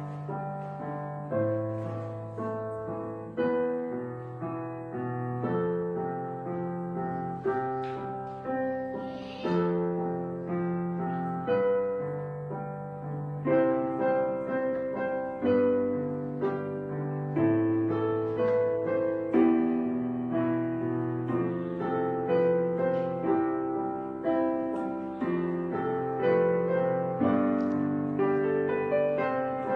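Background piano music: a slow, gentle melody over low held notes, each note struck and fading.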